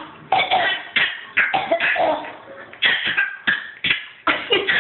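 Two people coughing at each other in turn: about ten short, sharp coughs in quick succession.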